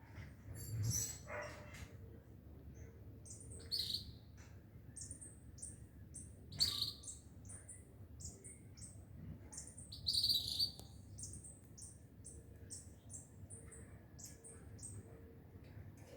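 Birds chirping: a string of short, high, falling chirps all through, with louder calls about 4, 6.5 and 10 seconds in.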